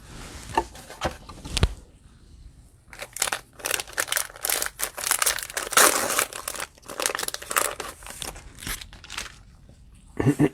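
Cellophane wrapper of a trading-card cello pack crinkling and tearing as it is ripped open and crumpled. A few sharp clicks come first, then dense crackling that thins out near the end.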